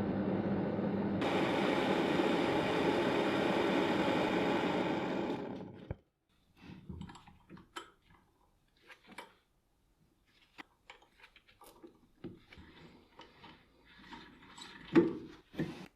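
A workshop power tool runs steadily and winds down about five seconds in, followed by scattered light clicks and knocks of metal parts being handled, with one sharper knock near the end.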